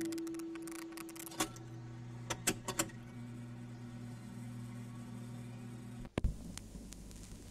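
A stereo amplifier's knob is turned, and the record player's tonearm is set down on a vinyl record: a low steady hum with a handful of sharp stylus clicks and crackles. About six seconds in the sound briefly cuts out and a low thump follows.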